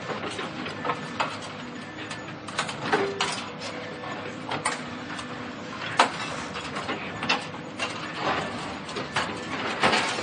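Demolition machinery at work: irregular metallic clanks, knocks and scraping over a steady mechanical hum, with a brief squeal about three seconds in and a sharp crack about six seconds in.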